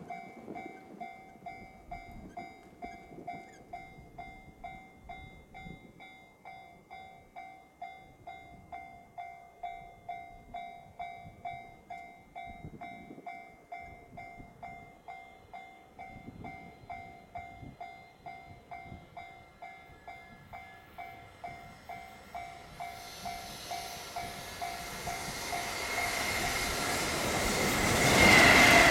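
Japanese level-crossing warning bell ringing in an even beat of about two to three strokes a second. A JR Freight EF210 electric locomotive hauling a container freight train approaches underneath it, its rumble growing over the last several seconds and loudest at the end as it reaches the crossing.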